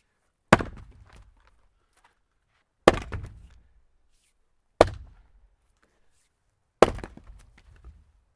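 Axe chopping wood: four sharp strikes about two seconds apart, each followed by a brief crackle of splitting wood.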